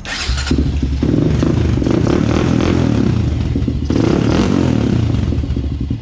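A 2004 Honda CRF250X's four-stroke single-cylinder engine starts cold and runs with the throttle blipped, surging briefly again about four seconds in. It then settles toward an even idle after a repair for a no-start.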